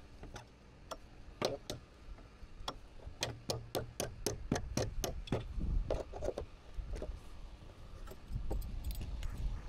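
A quick run of sharp, light clicks or taps, about three or four a second, over a low outdoor rumble. It starts about a second and a half in and dies out after a few seconds.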